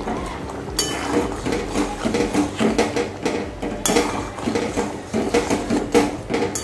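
Steel spatula stirring a thick fish curry in a steel kadhai, scraping and clinking against the pan in an irregular run of strokes that starts about a second in.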